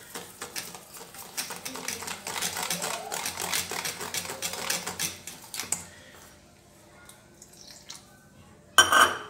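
Wire whisk beating wheat flour and water into a thin batter in a stainless steel bowl: rapid clicking and scraping of the tines against the bowl, easing off after about six seconds. Near the end comes one loud metal clink with a short ring.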